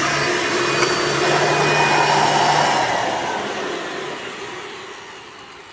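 Hoover Sprint upright vacuum cleaner's motor running steadily, then switched off about three seconds in and winding down slowly. To its owner it sounds a tad dry.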